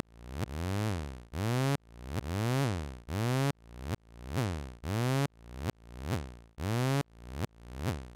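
Zebra2 software synthesizer holding a note whose pitch swoops down and back up over and over, under a second per cycle, each cycle cutting off sharply and restarting. The repeating sweep comes from the looped multi-stage envelope generator modulating the oscillator's tune.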